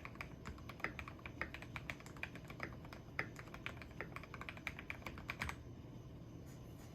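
Typing on a tape-modded Keychron V1 mechanical keyboard with lubed Gateron G Pro Red linear switches and XDA PBT keycaps: a quick, uneven run of keystrokes that stops about five and a half seconds in.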